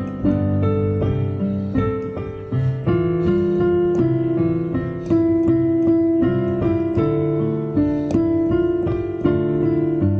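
Casio Celviano digital piano played with both hands: held chords and a melody over low bass notes, the chords changing about once a second.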